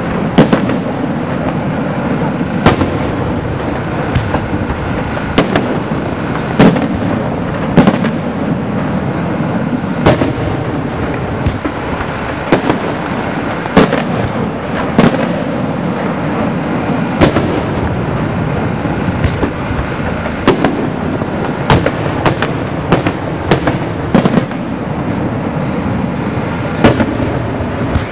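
Aerial fireworks display: a steady dense din broken by sharp shell bursts, irregular, about one a second and sometimes several in quick succession.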